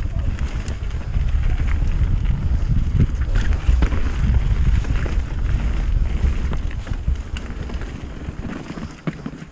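Wind buffeting an action camera's microphone as a mountain bike descends a muddy dirt forest trail, with tyre rumble and scattered clicks and rattles from the bike over roots and stones. It gets quieter near the end as the bike slows.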